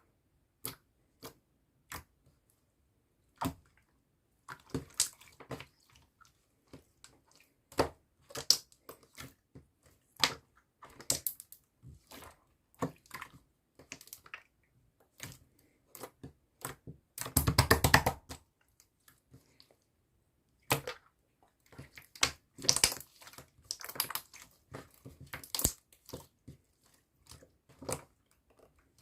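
Light clicks and taps of small objects being handled, spaced irregularly, with a short dense rattle about seventeen seconds in.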